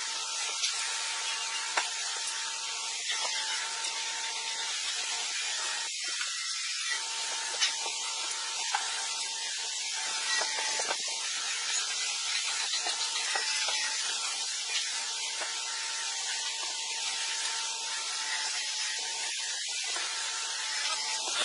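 A steady hiss, with a few faint clicks now and then.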